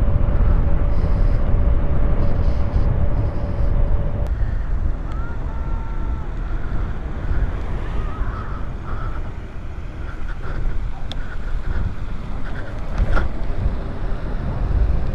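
Wind rumbling on the microphone and tyre noise while riding a Jackrabbit micro e-bike, with a steady high whine from its electric hub motor that cuts off suddenly about four seconds in. A few short chirps come shortly after.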